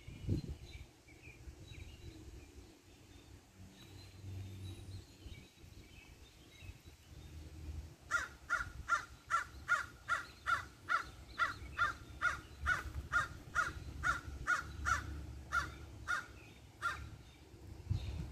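Crows cawing. About halfway through comes a fast, even run of some twenty caws, about two a second, lasting roughly nine seconds.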